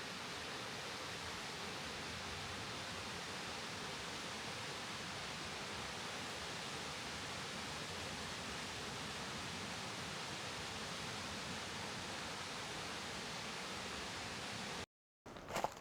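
Steady, even rushing hiss of outdoor ambience with no distinct events, cutting off abruptly near the end.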